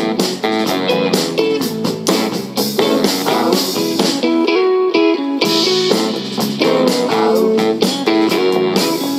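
Band music, an instrumental passage: electric guitar over a steady drum beat, with the drums and bass dropping out for about a second midway.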